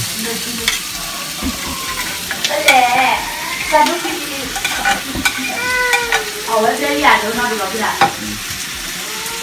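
Shellfish meat and onions sizzling in a frying pan while a plastic spoon scrapes food off a plate into the pan and stirs it, with scattered clicks of the spoon against plate and pan.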